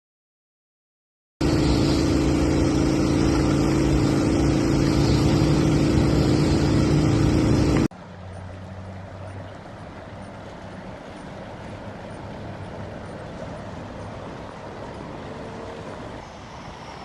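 A vehicle engine running under a steady hiss, starting after about a second and a half of silence. About eight seconds in it cuts abruptly to a quieter stretch of engine hum and hiss.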